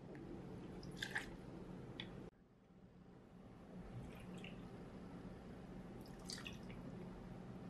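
Whisky poured from a glass bottle into a metal jigger and then tipped from the jigger into a glass, heard as faint trickling and dripping, with two light clicks near the start.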